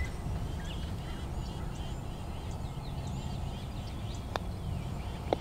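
Small birds chirping repeatedly in short, curved notes over a steady low rumble, with a sharp click about four seconds in and another just before the end.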